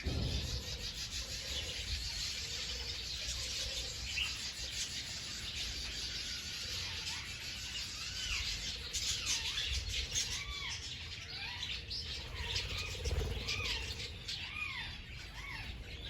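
A flock of birds chirping and calling in a dense chatter. From about seven seconds in, many short, repeated notes rise and fall in pitch.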